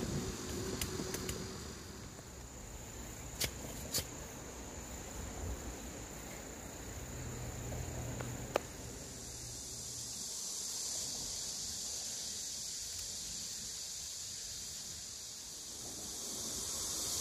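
Steady high-pitched chorus of summer insects buzzing, growing louder about ten seconds in. A few sharp clicks and knocks come through in the first few seconds and once more about halfway.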